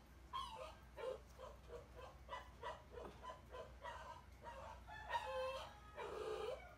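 Animal calls: a quick run of short high-pitched calls, a few a second, then two longer, louder drawn-out calls near the end.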